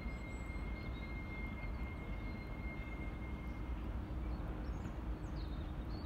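Steady low rumble and hiss of outdoor background noise, with a thin high steady tone that fades out about two-thirds of the way through. A few bird chirps come near the end.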